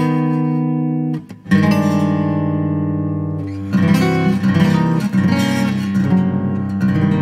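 Solo guitar music on a cutaway acoustic guitar: chords left to ring, a brief break about a second in, then a busier run of plucked notes from about halfway, ending on a ringing chord.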